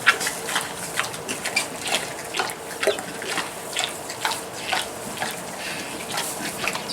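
Pig making wet smacking and clicking mouth sounds, irregular, about two or three a second.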